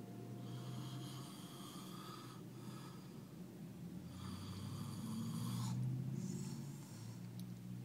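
A man snoring in his sleep: two long snoring breaths about four seconds apart, the second one louder.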